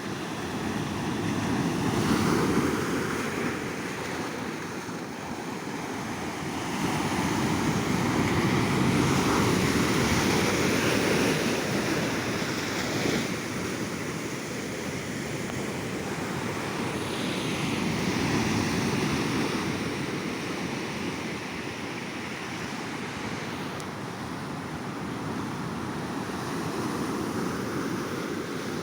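Ocean waves breaking and washing up on a beach, the surf swelling and ebbing every several seconds, with some wind on the microphone.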